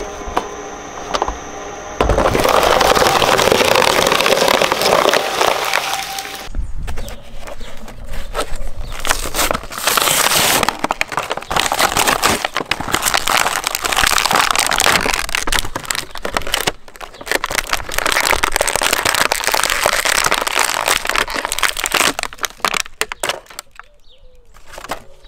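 Shredder crunching through plastic toys: dense cracking and crackling of breaking plastic that starts in earnest about two seconds in and dies away near the end.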